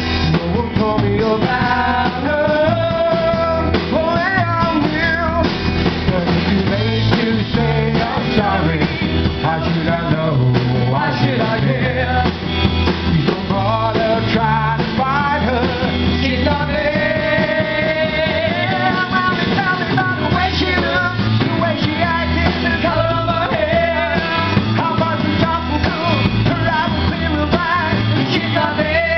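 Live rock band playing: drum kit, bass and electric guitar, with a singer's voice over them.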